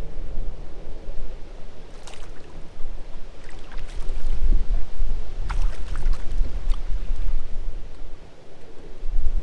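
Wind buffeting the microphone in gusts, a loud low rumble that eases off briefly near the end, with a few sharp clicks over it.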